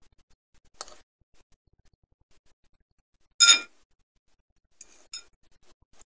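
Metal fork clinking against a plate as it pushes through canned sardines: four sharp clinks, the loudest about three and a half seconds in, ringing briefly.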